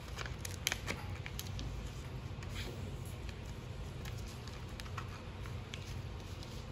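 A sheet of paper being folded and creased by hand on a table: soft rustling with a few crisp crackles, most of them in the first second or so, over a steady low hum.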